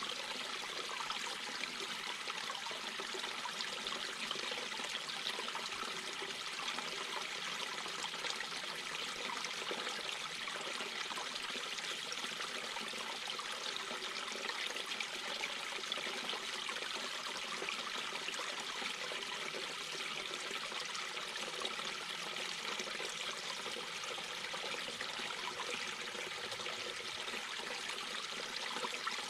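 Mountain brook babbling and trickling over stones, a steady unbroken rush of running water.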